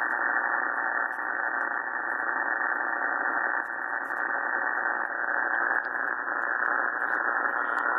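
Power line noise received on the 80 meter band, heard from an Elecraft K3S transceiver with its noise blanker off: a steady, even static hiss limited to the radio's narrow voice-width passband.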